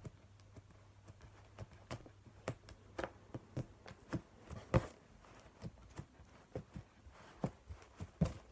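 Homemade Blu Tack slime being squeezed and worked by hand, giving irregular sharp clicks and pops, about two or three a second.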